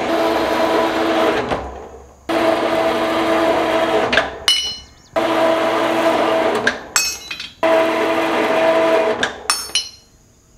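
Metal-cutting bandsaw running as it cuts steel round stock into short sections. Its steady motor and blade note stops and starts again several times. Between runs there are sharp metallic clinks with a brief ring as steel pieces knock together.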